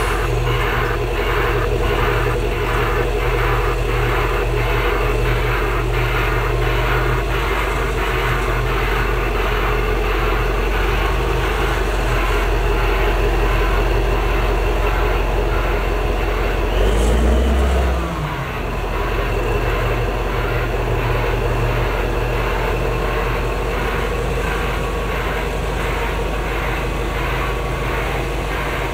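Heavy diesel engine of a Caterpillar prime mover running steadily while reversing a swing wheel low loader laden with a drill rig, with a reversing alarm beeping about twice a second. About two thirds of the way in, the engine revs up briefly and then drops back.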